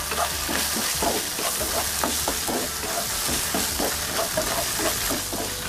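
Tofu cubes with chopped garlic and ginger sizzling in hot oil in a nonstick wok, stir-fried with a wooden spatula that scrapes and knocks against the pan many times.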